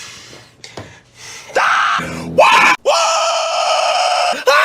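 A man yelling and screaming: short rising cries start about a second and a half in, then one long held high scream, and another short rising cry near the end.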